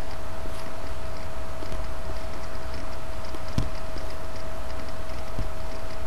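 A few faint clicks from someone working a computer, over a steady electrical hum and hiss with one constant mid-pitched tone.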